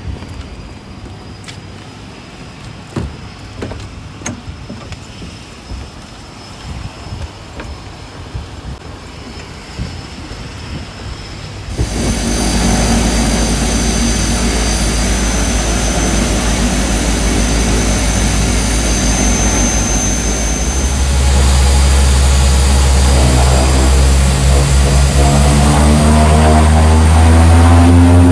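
Seaplane propeller engines heard from inside the cabin. The engine sound cuts in suddenly about twelve seconds in and runs steadily, then grows louder and rises in pitch over the last several seconds as the plane speeds up across the water on its takeoff run. Before that there is a quieter stretch with scattered knocks.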